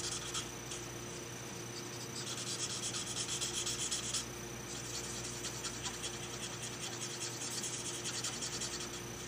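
Alcohol marker nib scratching back and forth over cardstock in quick short strokes as a stamped image is coloured in; busiest from about two to four seconds in, with lighter strokes after that.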